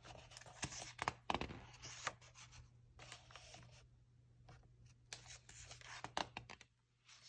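Faint, irregular rustling and brushing of paper as a picture book's pages are handled and turned by hand.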